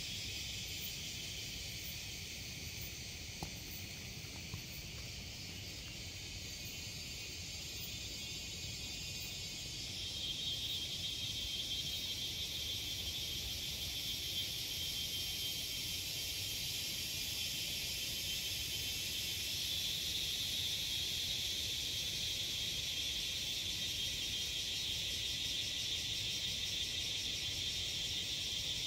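A dense chorus of forest insects: a steady, high-pitched buzzing drone with a fine pulsing in it. It swells louder about a third of the way in and again about two thirds through.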